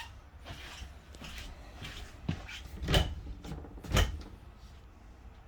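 Knocks and clicks of RV cabinet or wardrobe doors being opened and shut, with two sharper knocks about a second apart after the middle.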